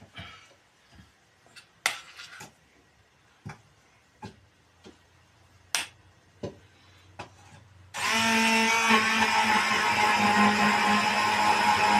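Scattered light clicks and knocks of kitchen handling, then about eight seconds in a loud, continuous sound with steady tones cuts in abruptly.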